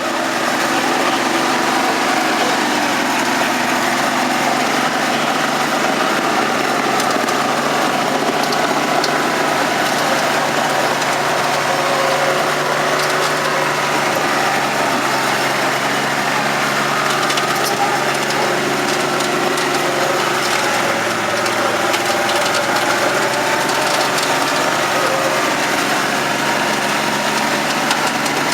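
Engine running steadily under load, its pitch dropping about two-thirds of the way through, with a crackling noise over it.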